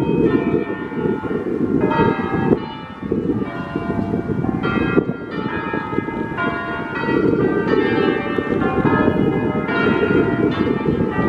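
Church bells ringing continuously, with struck notes one after another, over a steady low rumbling noise.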